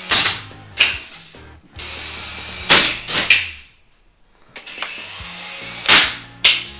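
A Syma S107G mini RC helicopter's small electric motors and rotors whirring in flight, broken three times by a crash: a sharp loud knock as it hits the tile floor, then a smaller clatter. Around the middle it lies still before whirring up again.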